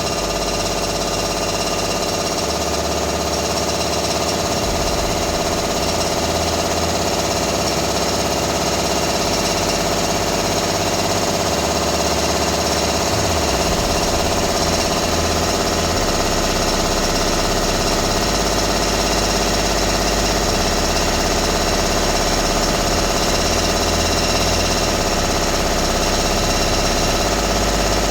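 Makita rotary hammer drill running steadily in hammer mode, a continuous loud mechanical chatter.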